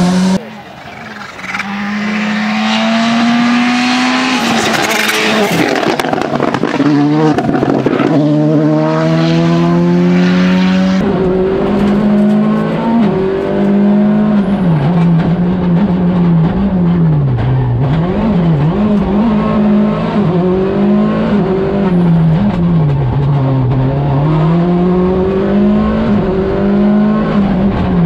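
VW Polo GTI R5 rally car's turbocharged 1.6-litre four-cylinder engine at full stage pace, its revs climbing and dropping through gear changes and lifts. In the first third, bright hiss from gravel and tyres runs with it. From about a third of the way in it is heard from inside the cockpit, the revs swinging sharply up and down again and again.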